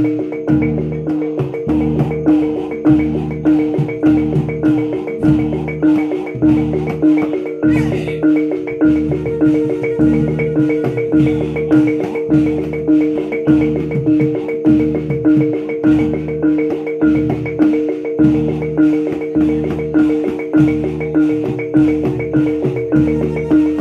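Javanese gamelan ensemble playing a steady, repeating reog accompaniment: ringing bronze pot gongs and metallophones over a regular pulse of low gong and drum strokes, a little more than one a second.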